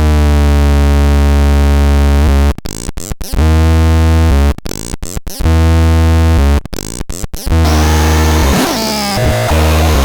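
Electronic sound device giving out harsh synthetic tones: a low buzzing drone held about two seconds, then a quick stutter of clicks, repeated three times. After that it breaks into a chaotic warbling of swooping tones.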